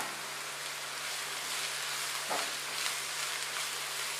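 Julienned carrot, cabbage and green capsicum sizzling steadily in oil in a frying pan while being sautéed, with a few faint taps.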